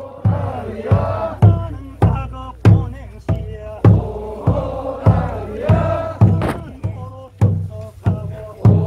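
A group of voices chanting together in a Korean traditional folk song over a steady drum beat, a little under two beats a second.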